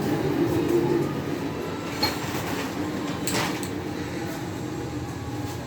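A steady low rumbling mechanical noise, with two sharp clicks about two seconds and three and a half seconds in.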